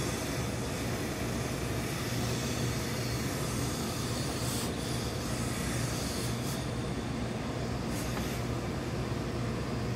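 Steady mechanical hum and rushing from a tailor's professional steam-iron pressing setup while wool trousers are pressed, with a few short hisses from the iron about halfway through and near the end.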